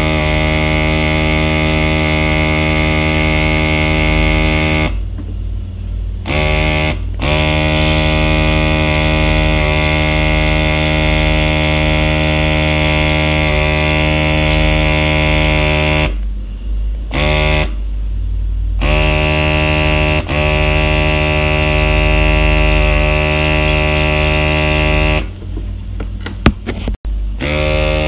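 Aerocolor battery airbrush pen's small air pump buzzing steadily as it sprays ink through the marker tip. It cuts out and restarts several times, with one longer stop and a few sputtering stop-starts near the end, as the trigger is released and pressed again.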